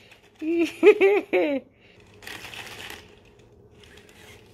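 Sony AIBO ERS-1000 robot dog making a quick run of short, pitch-bending electronic yips through its speaker, the last one wavering; then a brief soft hiss about two seconds in.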